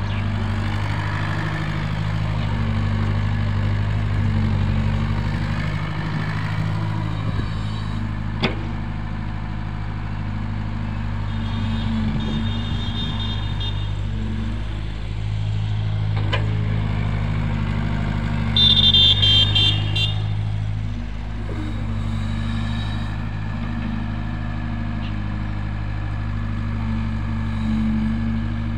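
CAT tracked excavator's diesel engine running steadily under load as it digs sand, its note swelling and easing with the work. A couple of sharp clicks or knocks are heard. A high, pulsing horn-like beeping comes briefly in the middle and louder about two-thirds of the way in.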